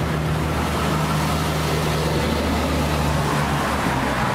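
Steady low engine hum of a motor vehicle running nearby over a constant background hiss; the hum drops off about three and a half seconds in.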